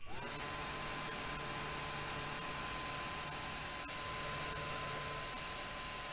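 Small motor and impeller of a Xiaomi Weiyuan bladeless handheld fan, switched on with its casing opened. It spins up at once and then runs at a steady speed: a steady high whine over a rush of air.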